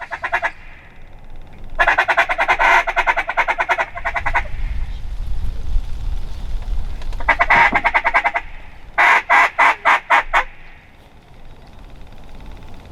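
Duck call blown to lure ducks in: two fast, rapidly pulsed chuckle runs, then a string of six loud separate quacks.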